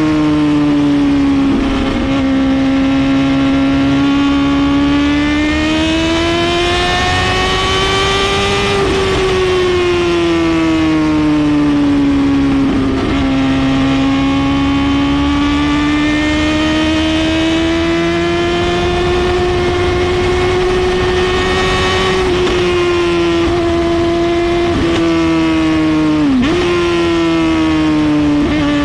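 Suzuki GSX-R750 inline-four engine through a full Brocks exhaust, running loudly with its pitch rising and falling slowly over several seconds at a time, with a sharp momentary dip and recovery near the end.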